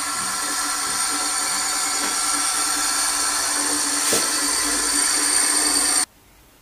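A small electric motor running with a steady, high-pitched mechanical whine made of several fixed tones. It cuts off abruptly about six seconds in.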